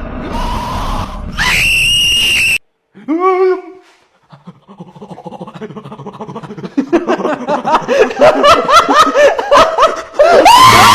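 A person screams, gives a short yelp, then breaks into rapid, building laughter that ends in another loud, high scream.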